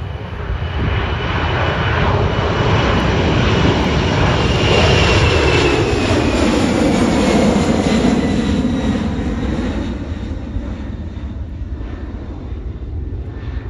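Jet airliner's turbofan engines at takeoff thrust as it climbs out overhead: a broad roar that swells to a peak in the middle, with a fan whine that falls in pitch as the aircraft passes, then eases off as it climbs away.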